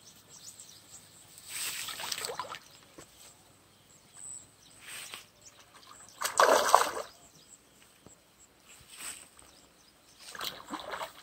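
A hooked catfish thrashing at the surface of a shallow muddy pond: water splashing in several separate bursts, the loudest about six seconds in.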